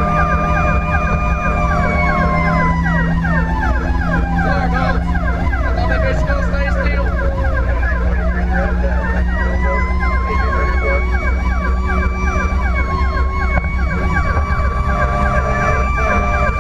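Emergency vehicle sirens heard from inside the responding vehicle's cab: a fast, repeating siren yelp, with a steadier siren tone that slides down in pitch for several seconds and climbs back up around halfway through. Steady engine rumble runs underneath.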